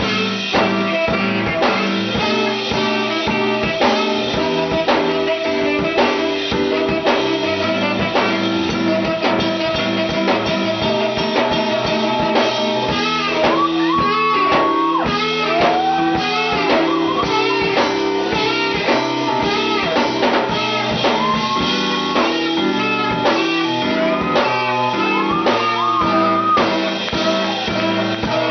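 Band music with a steady beat and drums, with held, bending melody notes about halfway through and again near the end.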